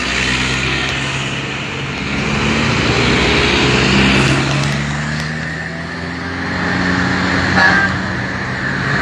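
Road traffic passing close by: light trucks and an SUV driving past, their engines rising and falling in pitch and loudness as each one goes by. A brief high beep sounds near the end.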